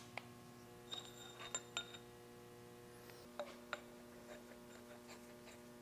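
Faint light metallic clinks as a socket wrench is worked on a nut on a steel stud in the lathe's cast-iron tailstock: a few ringing clinks close together about a second in, then two sharper clicks in the middle.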